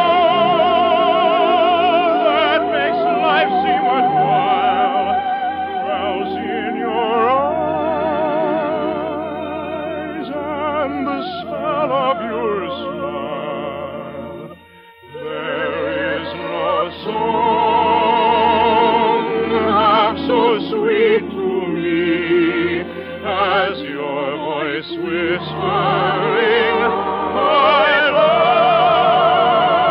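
Operatic soprano singing with a wide vibrato, held notes high in pitch, with a brief break about halfway through.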